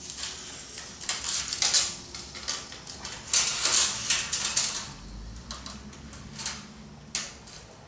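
Steel tape measure being worked along steel frame rails: irregular light metallic clinks, rattles and scrapes as the blade slides and taps against the metal.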